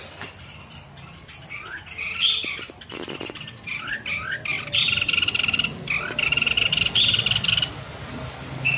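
Red-whiskered bulbul calling: a few short rising chirps, then a long, harsh, fast-rattling buzzy call through the second half. There is a single knock about three seconds in.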